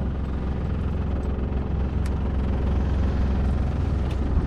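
Boat outboard motor running steadily under way, with wind and water hiss. It runs evenly, seemingly working fine after earlier losing revs and stuttering.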